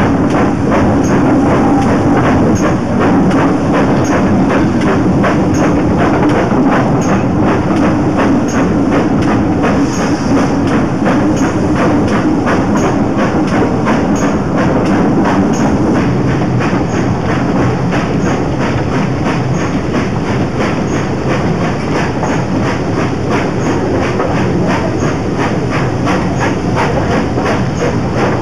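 Heritage railway coaches running along the track, heard from an open carriage window: a steady rumble of wheels on rail with a regular clickety-clack as they pass over the rail joints.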